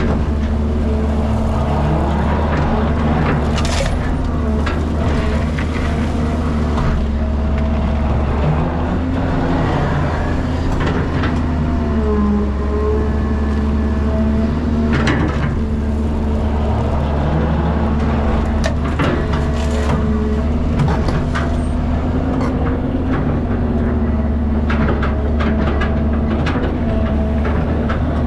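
Cat 320GC excavator's diesel engine and hydraulics running under load as it digs and loads a dump truck. The engine and pump note dips and recovers several times as the boom and bucket work, with scattered knocks and clanks throughout.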